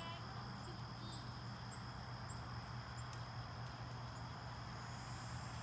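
Crickets trilling steadily in a high, even tone, with faint short high chirps about every half second in the first half and a low steady hum beneath.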